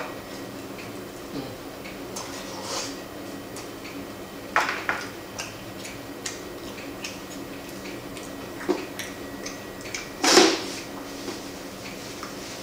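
Handling of a cardboard food box and its contents on a table: scattered rustles, taps and knocks, with louder clatters a little over four seconds in and around ten seconds in.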